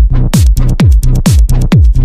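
Techno/tech-house track playing. A steady four-on-the-floor kick drum hits about twice a second, each hit falling in pitch, with a sustained bass line between the kicks and hi-hats on top.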